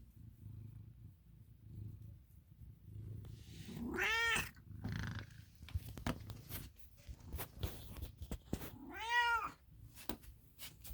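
Domestic cat, an American Ringtail, purring in slow pulses, then meowing twice about five seconds apart, each meow rising then falling in pitch. A few sharp clicks come between the meows.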